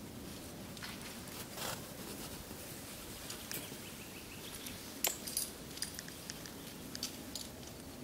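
Metal climbing hardware on a climber's harness, carabiners and quickdraws, clinking in a cluster of short, sharp jingles starting about five seconds in. A soft scrape comes earlier, over a steady low background noise.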